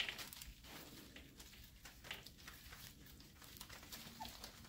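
Airedale Terrier puppies, nearly five weeks old, playing: faint scratching and shuffling of paws on a blanket, with one brief squeak near the end.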